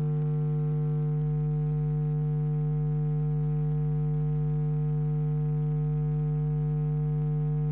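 Steady electrical mains hum: a constant low buzz held at one pitch with a stack of overtones, unchanging throughout.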